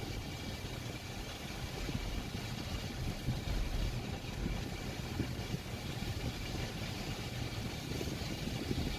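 Steady low rumble of motor-vehicle engines running, with no single sharp event standing out.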